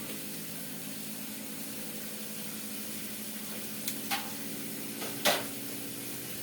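Steady hiss and low hum of a pot cooking on the stove, with three sharp clinks, most likely a utensil against the pot, about four to five seconds in; the last is the loudest.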